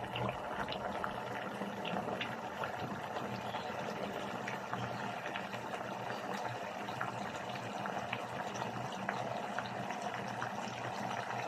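Chicken pieces simmering in a thick red sauce of banana ketchup and oyster sauce in a pan. The sauce bubbles steadily, with many small pops.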